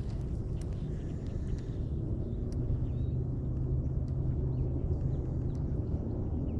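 A low steady rumble with a faint hum through the middle, and a few faint high chirps.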